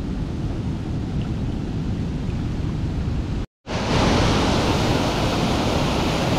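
Steady rushing outdoor noise with no distinct events, rumbling at first. A brief cut-out about three and a half seconds in marks an edit, after which the noise comes back louder and hissier.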